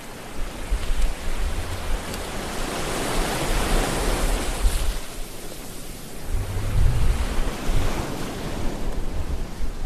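Shallow seawater washing and splashing against the hull of a one-man outrigger canoe, with wind buffeting the hull-mounted camera's microphone in low gusts. The water noise swells for a couple of seconds in the middle.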